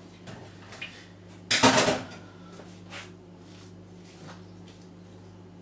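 Kitchenware put down on a countertop with one loud clatter about a second and a half in, with a few light knocks before and after, over a steady low hum.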